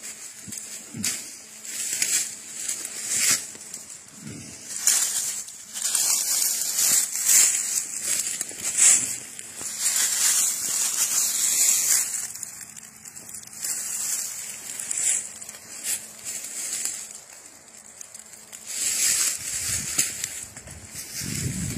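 Dry leaf litter and pine needles crunching and rustling irregularly under footsteps and a hand searching through them.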